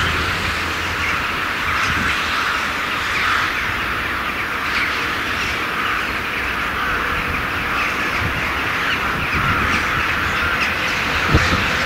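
A flock of birds calling and chattering nonstop. Near the end come a few low knocks from an approaching train.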